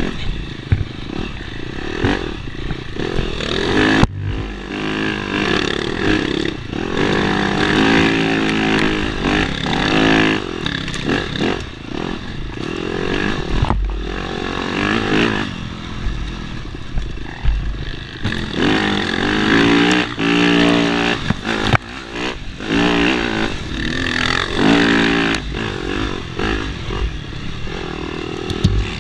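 Dirt bike engine under hard trail riding, its pitch climbing and falling again and again with throttle and gear changes, broken by a few sharp knocks and clatter from the bike over rough ground.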